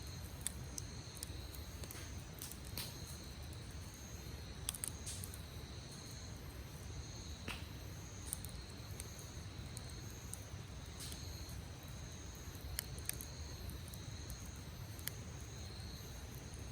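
Wood campfire crackling, with scattered sharp pops at irregular intervals, over steady high-pitched insect chirring, likely crickets.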